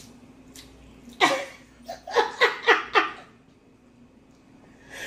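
A woman laughing in a quick run of short bursts, starting about a second in and lasting about two seconds.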